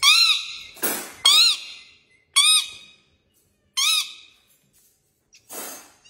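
Parrot calling: a string of six short calls. Four are squeaky notes that rise and then fall in pitch, and two are harsh squawks, with short silences between them.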